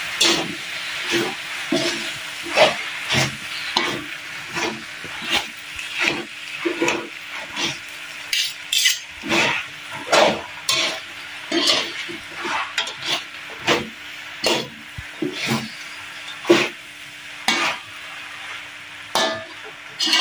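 Metal spatula scraping and knocking against a metal wok while stir-frying noodles, in short strokes roughly once or twice a second, over a steady sizzle of food frying in the pan.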